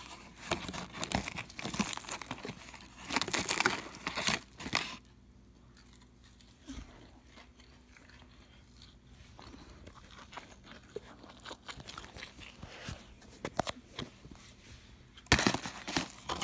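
Paper fast-food bag and cardboard nugget box crinkling and rustling as they are handled. It comes in loud crackly spells over the first five seconds and again about a second before the end, with only small clicks and handling noises in the quieter stretch between.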